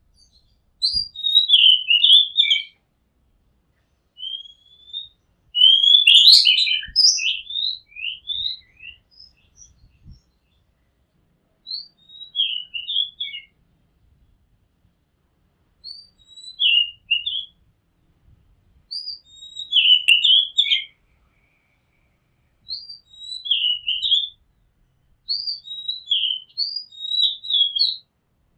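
Oriental magpie-robin singing: short phrases of rich whistled and warbled notes, repeated every few seconds with pauses between them.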